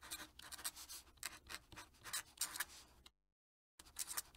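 Fountain pen nib scratching across paper in quick, irregular strokes while writing in cursive. The sound cuts out completely for a moment about three seconds in, then resumes.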